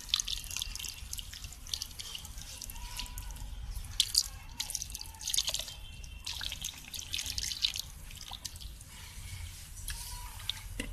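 Water poured from a small bucket into a pot of freshly packed soil, splashing and trickling in uneven surges as it pools on the earth.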